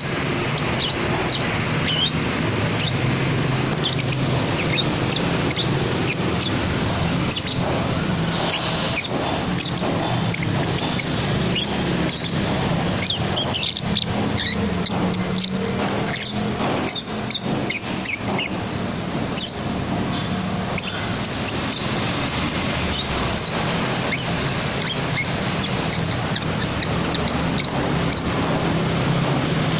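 A baby lovebird's raspy 'snoring' call, kept up without a break: a dense run of short, high chirps and squeaks over a steady low hum.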